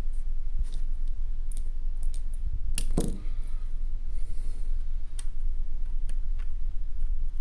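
Light scattered clicks and taps of a small screwdriver and plastic parts as the ThinkPad T430's speaker is screwed into place, with a louder knock about three seconds in, over a steady low hum.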